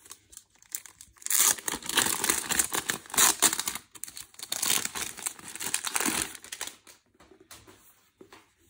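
Thin clear plastic wrapping crinkling and tearing as it is pulled off a hardcover notebook, a dense crackle that starts about a second in and stops about two seconds before the end, leaving only faint handling sounds.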